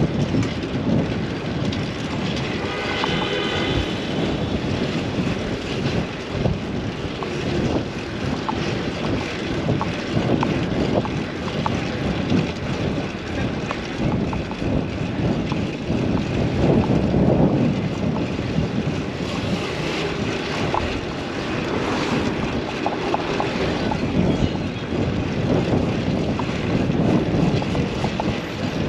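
Wind buffeting the microphone of a camera on a fixed-gear bicycle riding through city traffic, with steady road and traffic noise underneath. A brief high tone sounds about three seconds in.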